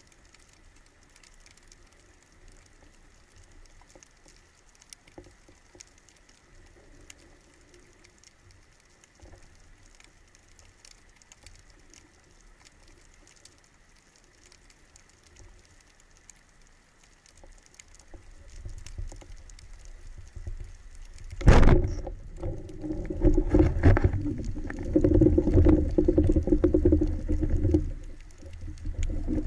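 Faint underwater crackling, then, about three-quarters of the way in, the single sharp crack of a band-powered wooden speargun firing. Loud rumbling water noise follows.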